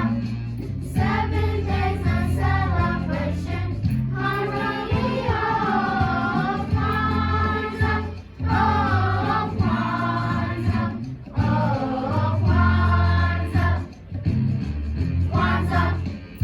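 Children's choir singing a holiday song in unison over instrumental accompaniment with a steady bass, in phrases separated by short breaths.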